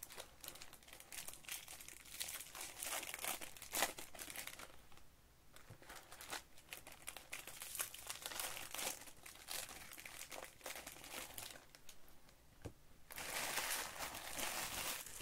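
Foil trading-card pack wrappers crinkling in the hands as packs are handled and opened, in quick irregular crackles, with a longer, denser rustle near the end.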